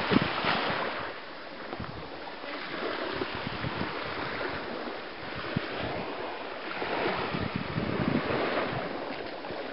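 Surf washing on a sandy beach, swelling and fading several times, with wind buffeting the microphone.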